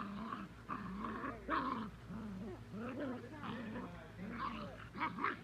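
Several Hungarian Vizsla puppies growling at each other as they play-fight, in many short, wavering growls with brief higher yelps mixed in.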